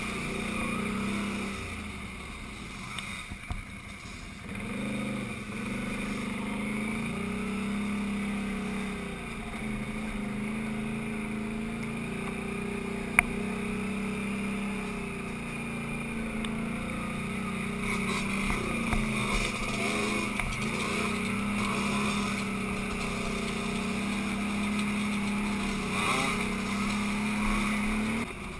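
Quad (ATV) engine running while riding, heard from on board, its note rising and falling with the throttle and easing off for a couple of seconds early in the ride. A single sharp click about 13 seconds in.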